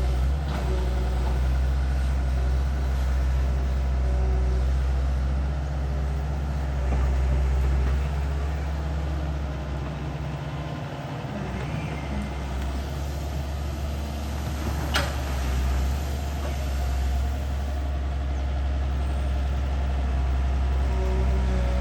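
Long-reach IHI excavator's diesel engine and hydraulics running steadily under work. The engine note eases for a couple of seconds around ten seconds in, then picks up again. There is one sharp click about fifteen seconds in.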